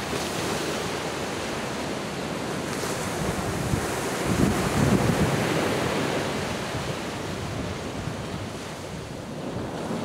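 Small sea waves breaking and washing up a sandy beach, swelling louder around the middle and easing off near the end, with wind buffeting the microphone.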